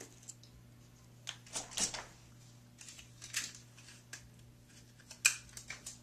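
Adhesive tape being pulled off the roll, torn and pressed down by hand, in short scratchy rasps, the sharpest about five seconds in.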